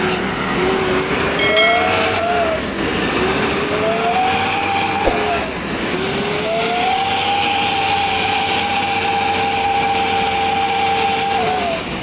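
Diesel engine of a loaded Mitsubishi Canter truck revving hard under load as it pulls through deep mud, its pitch climbing and holding in three long pushes with brief dips about three and six seconds in, then falling away near the end.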